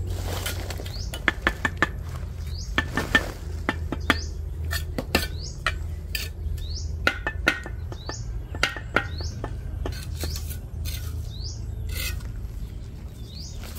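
Steel mason's trowel tapping and scraping as hollow clay bricks are bedded into wet mortar: an irregular run of sharp clicks and knocks, some with a short metallic ring. Short bird chirps repeat every second or so over a steady low hum.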